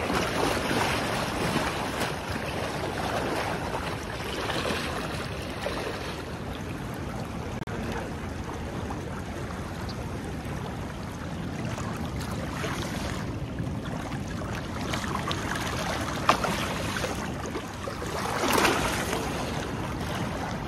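Steady rush of fast-flowing river water with wind buffeting the microphone, and a louder swish of water about two seconds before the end.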